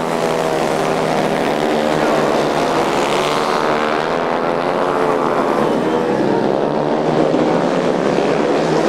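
Several youth speedway motorcycle engines running together, their pitch rising and falling as they rev.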